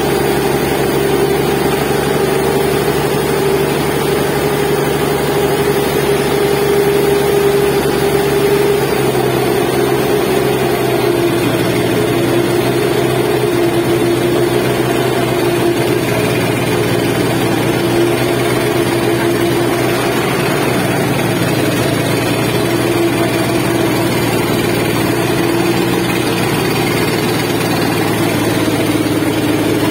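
The engine of a sand-dredging pump boat runs steadily and loudly without a break, along with water gushing from the pump's discharge pipe into the river.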